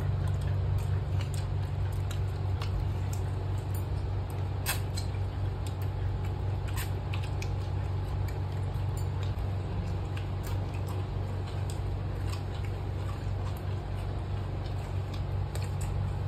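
Eating by hand from dry leaf plates: small scattered clicks, crackles and squelches as fingers mix rice and curry and pick at chicken, over a steady low hum.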